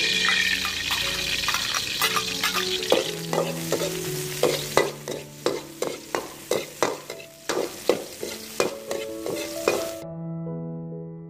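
Hot oil sizzling in a wok as chopped food is tipped in, the sizzle fading over a few seconds. A metal ladle then scrapes and knocks against the wok about twice a second as it stirs. The sizzle and stirring cut off abruptly near the end, leaving soft background music.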